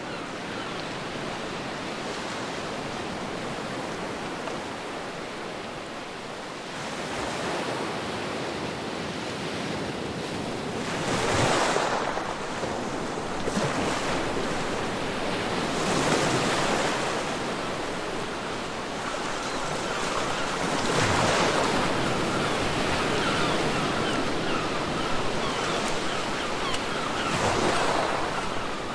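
Ocean waves breaking on a beach: a steady wash of surf, with four bigger waves surging in about five seconds apart in the second half.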